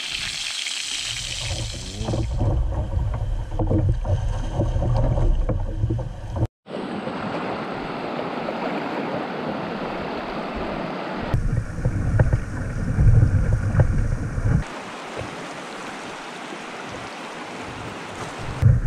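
Rushing river water with wind buffeting the microphone, in several short clips that cut abruptly from one to the next, with a brief gap about six and a half seconds in.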